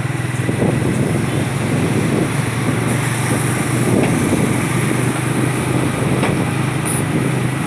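A vehicle engine running steadily with a constant low hum, under road noise.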